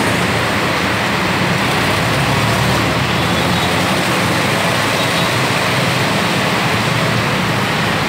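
Heavy rain pouring steadily as a dense hiss, over road traffic and vehicle engines running.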